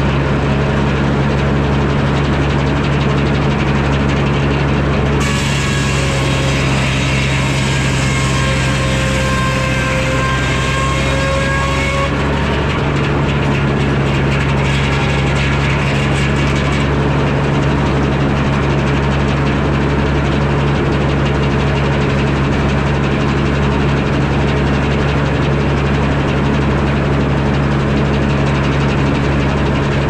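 The engine driving a Frick sawmill runs steadily throughout. From about five seconds in, the circular saw blade cuts through a log with a high whine and hiss, which eases after about twelve seconds and is gone by about seventeen.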